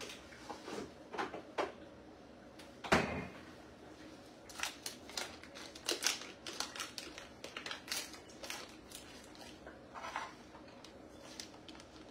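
Kitchen handling noises: scattered clicks and knocks of containers and utensils, with one loud knock about three seconds in and a quick run of small clicks after it.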